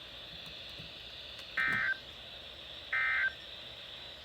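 Two short electronic beeps from a weather radio broadcast, each a chord of tones about a third of a second long, about 1.3 s apart over a faint steady hiss. They sound like telephone touch-tones.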